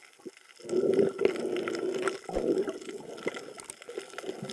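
Water gurgling and sloshing around an underwater camera as a diver moves, with scattered small clicks; it starts up about a second in.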